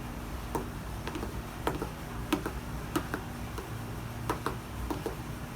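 Light, irregular clicks and taps, about fifteen scattered through, from handling the bowls and the sticky slime mixture at the table.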